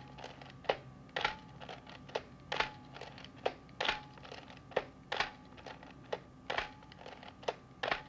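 A string of sharp clicks or snaps, unevenly spaced at roughly two a second, over a steady hum of held tones; all of it stops abruptly at the end.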